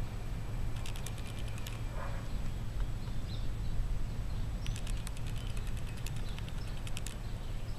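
A cat crunching dry kibble, heard as two bursts of rapid sharp clicks: a short one about a second in and a longer one from about the middle to near the end. A steady low rumble lies underneath.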